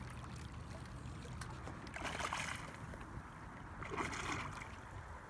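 A hooked blue catfish thrashing at the water's surface near the bank: two spells of splashing, about two seconds in and again about four seconds in.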